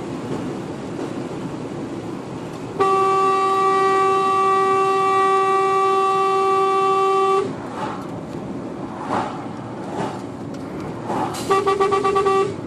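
Truck horn sounded in one long blast of about four and a half seconds, then a rapid run of short toots near the end, warning the driver of the car ahead who was in difficulty. Steady engine and road noise from inside the cab runs underneath.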